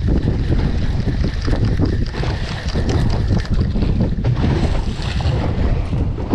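Steady wind buffeting the microphone on an open fishing boat at sea, with the sea washing along the hull.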